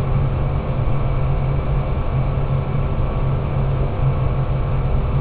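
Steady low hum with an even rushing noise, like a ventilation fan running, unchanged as the graphite burns.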